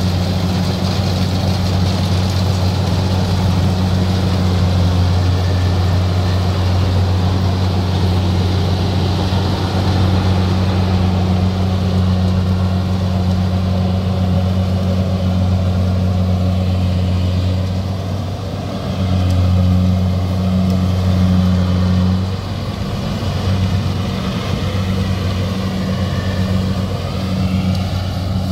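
Kubota DC-70G rice combine harvester running under load as it cuts and threshes rice, a loud, steady low engine hum. From about eighteen seconds in the hum wavers and its level rises and falls as the machine moves off.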